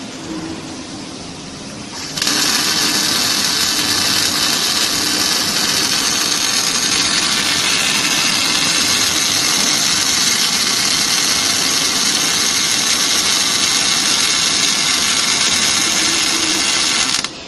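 Arc of an automatic circumferential welding machine striking about two seconds in and running as a steady, loud hissing noise as the torch welds a seam around a jack base. It cuts off suddenly near the end, when the weld is finished.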